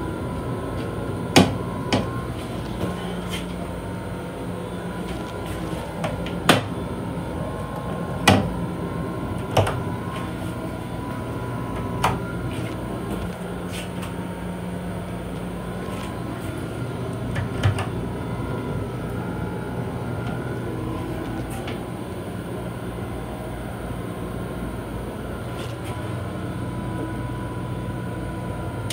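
Steady rumble and hum inside the restroom of a Long Island Rail Road M7 electric railcar, with a faint steady tone, broken by about seven sharp knocks and clunks, most of them in the first twelve seconds.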